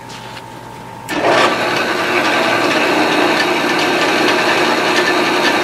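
A center drill spinning in a drilling machine, first running free with a steady hum, then about a second in biting into a metal pipe handle with a loud, steady cutting noise as it spots the hole at the pipe's center.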